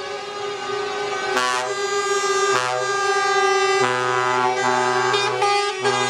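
Several lorries' air horns sounding together in long, overlapping blasts, with fresh horns cutting in about a second and a half, two and a half and four seconds in, making a shifting chord.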